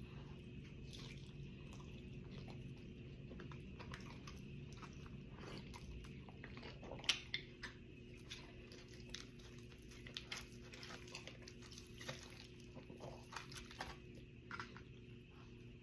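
A person chewing and biting into air-fried chicken, with scattered wet mouth clicks and crunches that come more often in the second half.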